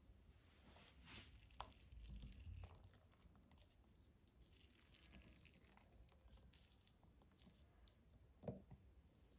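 Near silence: room tone with a few faint soft clicks.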